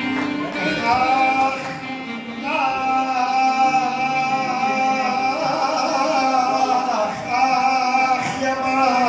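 A voice singing long held notes that waver slightly and glide from one note to the next, in the style of Lebanese zajal.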